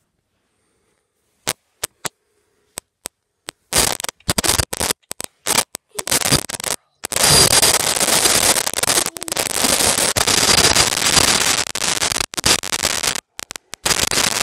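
Crackling, rustling handling noise: the microphone brushing against a cat's fur and the petting hand. It begins as a few sharp clicks, then becomes near-continuous rubbing about four seconds in, broken by brief dead gaps.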